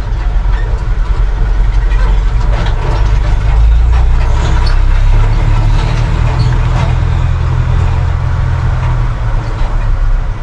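John Deere tractor engine running, heard from inside the cab: a steady low drone that grows somewhat louder about four seconds in, with light rattles.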